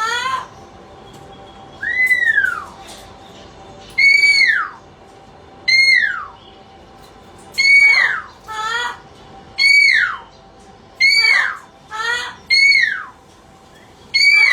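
A pet parrot whistling the same call over and over, about once every two seconds. Each call climbs briefly and then slides down in pitch, and some are followed by a shorter warbling note.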